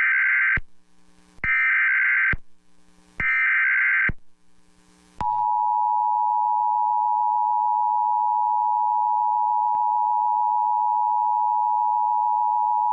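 Emergency Alert System alert opening: three short bursts of the SAME digital data header, then, about five seconds in, the steady two-tone EAS attention signal (853 and 960 Hz sounding together), marking the start of a new weather warning.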